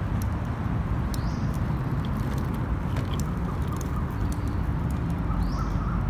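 Small plastic wheels of a kid's two-legged swing scooter rolling over rough asphalt: a steady rumble with scattered light clicks and rattles.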